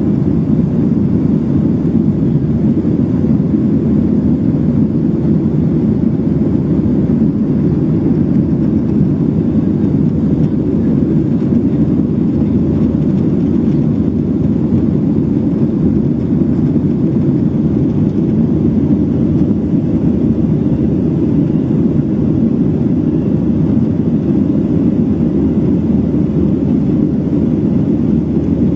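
Boeing 737-700 in flight heard from inside the passenger cabin: its CFM56-7B jet engines and the air rushing past the fuselage make a steady, low, unchanging drone.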